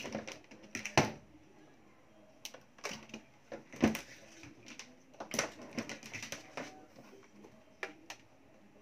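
Irregular clicks and knocks from hands working on scooter wiring and plastic parts, with two sharper knocks about a second in and just before four seconds and clusters of small ticks between.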